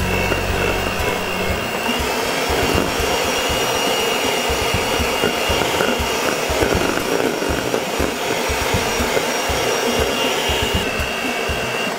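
Electric hand mixer running steadily at speed, its two wire beaters whipping a thick meringue in a stainless steel bowl, with a thin high whine from the motor over the churning. It is the last beating of the meringue to stiff peaks, and it stops at the very end.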